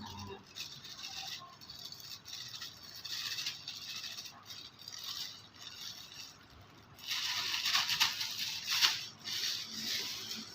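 Rattling and scraping of small objects being handled, in uneven short runs. It grows busier and louder about two thirds of the way through.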